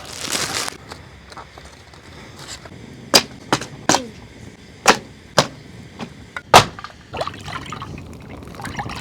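A series of about six sharp knocks or snaps at irregular intervals, a little over three seconds in until just under seven, after a brief rush of noise at the very start.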